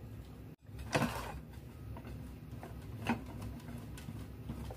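A block of cheddar being grated by hand on a stainless steel box grater: a series of short, unevenly spaced scraping strokes, the loudest about a second in.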